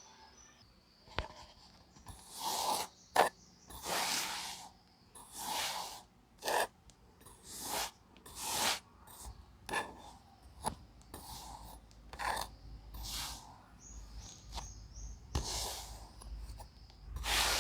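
Kinetic sand being scraped, a series of short rasping strokes about once a second with a few sharper clicks among them.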